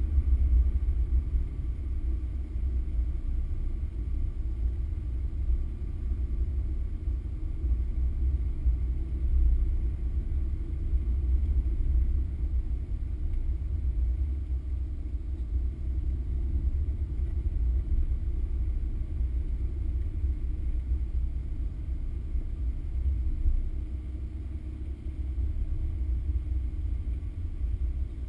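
Car driving along a wet road, engine and tyre noise heard from inside as a steady low rumble, easing a little near the end.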